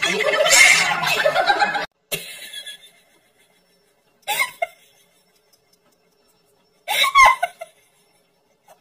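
People laughing: a loud stretch of laughter and voices that breaks off about two seconds in, then two short bursts of laughter at about four and seven seconds in.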